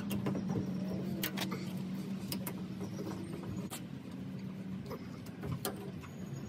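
Fishing line being sawed up and down through the foam adhesive tape behind a pickup truck's side trim molding, giving scattered short scrapes and snaps. A steady low hum runs underneath and stops about five seconds in.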